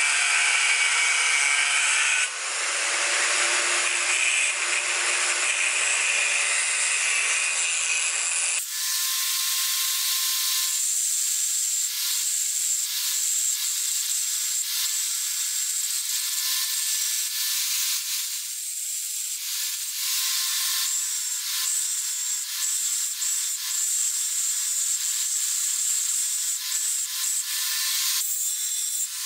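Angle grinder with a thin abrasive disc grinding a steel rod into a blade tip: a steady hissing, grating whine of the spinning disc on metal. The sound changes abruptly twice, a couple of seconds in and again about nine seconds in, becoming thinner and higher with a steady high whine.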